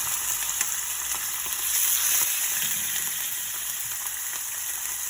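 Chicken pan-frying skin-side down in hot oil: a steady sizzle with a few small crackles.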